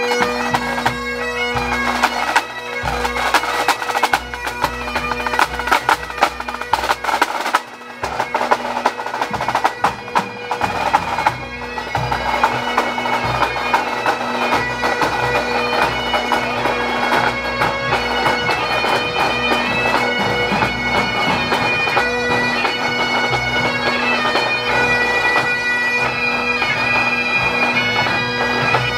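Pipe band playing: Great Highland bagpipes with steady drones under the chanter melody, and snare, tenor and bass drums beating. The drums are loudest in the first dozen seconds and fade back after that, while the pipes play on.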